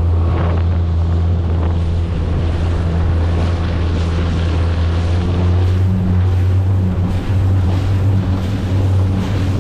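15 hp Mercury outboard running at a steady pitch as the inflatable dinghy moves along, with wind buffeting the microphone and water rushing along the hull.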